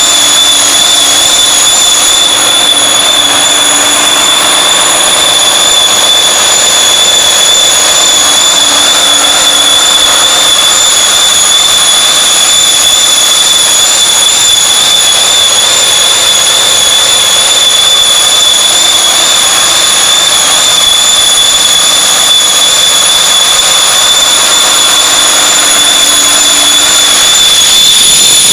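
V-46-4 V12 tank diesel engine running steadily on a test stand, loud, with a steady high-pitched whine over the engine noise.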